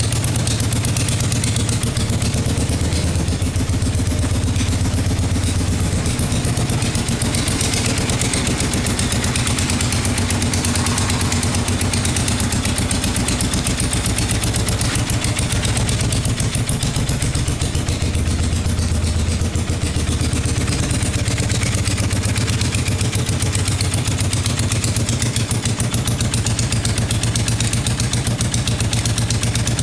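A 1979 Honda CB400T's air-cooled parallel-twin engine idling steadily.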